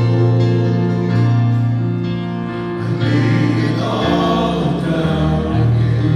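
Three men singing a slow worship song in harmony through handheld microphones, holding long notes.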